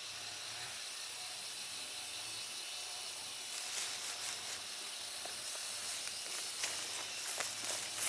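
A steady high outdoor hiss, then from about halfway in a run of irregular rustling and crunching noises that grow louder near the end.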